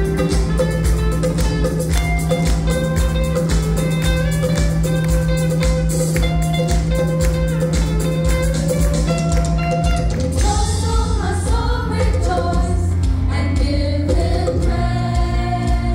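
Upbeat song with guitar and a steady drum beat. A voice comes in singing about ten seconds in.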